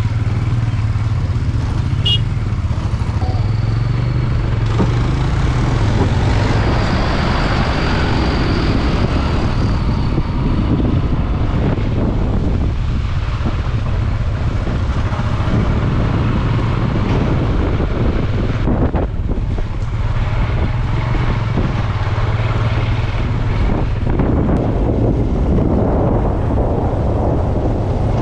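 Motorcycle engine running steadily under way, mixed with rushing wind and road noise, heard from the rider's seat.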